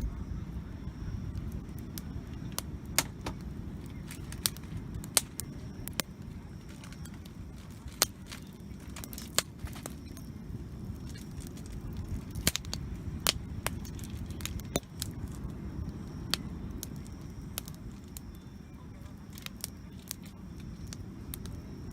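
Wood campfire crackling, with irregular sharp pops and snaps a few times a second over a steady low rumble.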